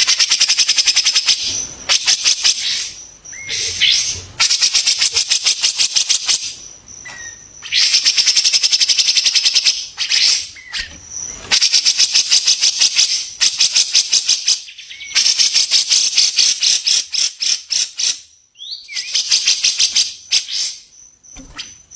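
Cucak jenggot (grey-cheeked bulbul) singing in long runs of very fast, rattling high notes, each run a second or two, broken by short pauses and a few brief whistles.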